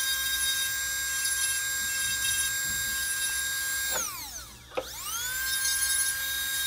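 Handheld dental lab rotary handpiece with a red-stripe (fine diamond) bur, running at a steady high whine while it grinds off support nubs on a 3D-printed resin bridge. About four seconds in it winds down nearly to a stop with a click, then spins back up to speed.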